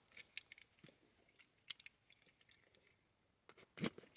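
Faint scattered clicks and rustles of a cardboard box and packaging being handled, with a louder cluster near the end.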